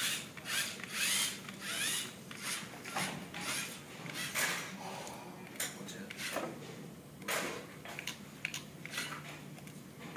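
Small wheeled robot's electric gear motors whirring in short bursts as it drives and turns, with mechanical clicks and rubbing. The bursts come often at first and more sparsely in the second half.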